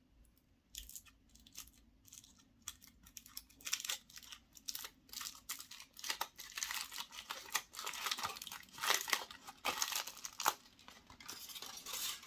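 Foil wrapper of a chocolate surprise egg being torn open and crinkled by hand, in a dense run of irregular crackles.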